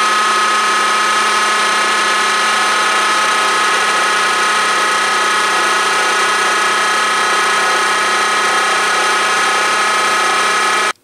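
End mill on a vertical milling machine cutting into an aluminium casting: a loud, steady whine with many overtones. It cuts off suddenly near the end.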